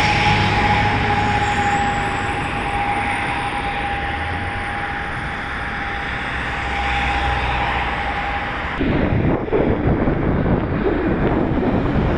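Twin-engine turboprop airliner droning on approach as it moves away after passing low overhead, a steady noisy rush with one held tone. About three-quarters of the way through this gives way abruptly to wind buffeting the microphone.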